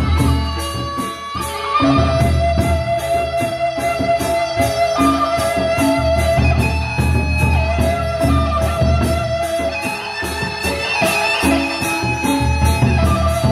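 Gendang beleq ensemble playing: large Sasak barrel drums beating under a steady pulse of small cymbal and kettle-gong strokes, about two or three a second, with ringing bronze tones held over the top.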